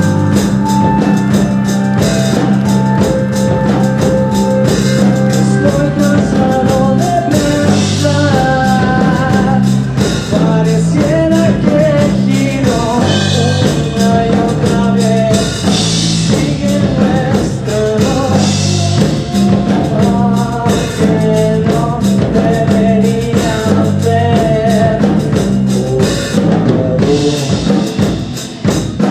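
Rock band playing live: drum kit, bass and guitars, with singing over them.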